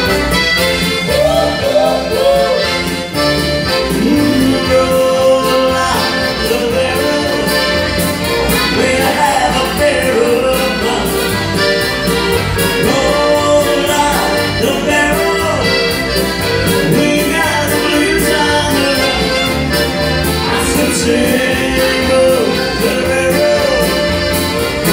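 Accordion playing an instrumental tune over keyboard backing with a steady bass beat.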